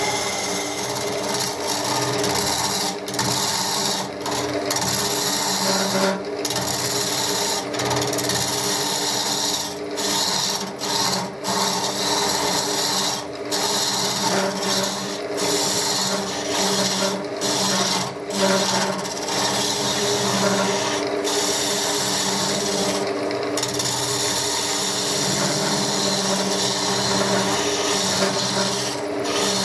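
Wood lathe running with a steady motor hum while a tool scrapes against the spinning chestnut wood, a continuous rasping broken by several brief breaks.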